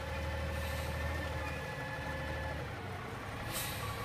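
Front-loader garbage truck's engine idling steadily, with one short hiss of air near the end, as from the air brakes.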